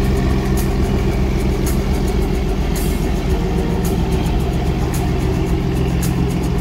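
A boat's diesel engine running steadily at close range, with water churning from a propeller.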